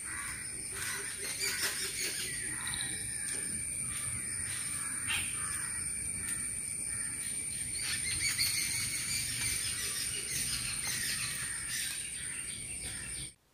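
Outdoor ambience of birds chirping and calling over a steady, high insect drone, likely crickets. It cuts off abruptly near the end.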